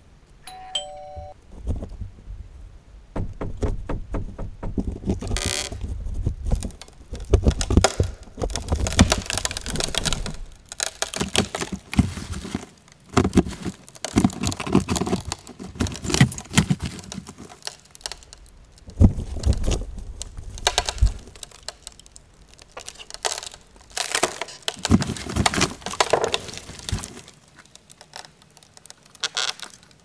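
A two-note ding-dong doorbell chime, high then low, about a second in, followed by long stretches of irregular crackling, rustling and crunching with low thumps that die away near the end.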